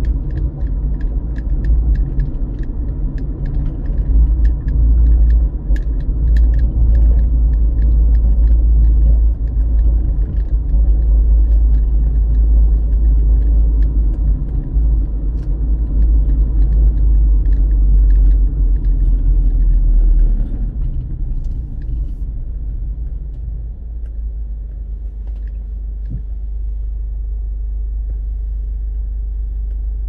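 Car driving on the road, heard from inside the cabin: a heavy, steady low rumble of road and engine noise with faint small clicks and rattles through it. The rumble eases to a lower, even level about two-thirds of the way through, as the car slows.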